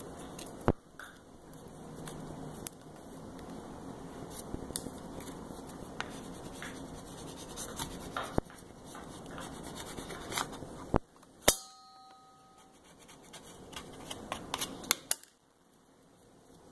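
Paper and decal transfer tape rustling and crinkling as a vinyl decal is handled and peeled by hand, with scattered sharp clicks. About eleven and a half seconds in comes one louder knock with a brief ringing tone after it.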